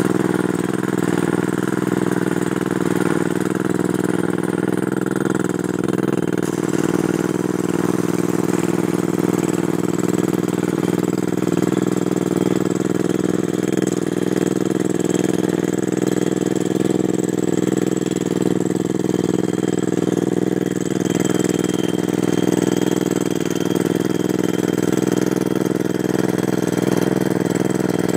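Pneumatic crawler rock drill running steadily while drilling into rock, an even machine drone with a pitched hum that holds without a break.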